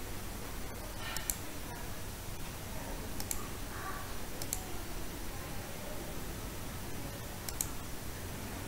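Computer mouse clicking: a handful of sharp clicks, with a quick pair about a second in and another near the end, over a steady low hum and hiss of room noise.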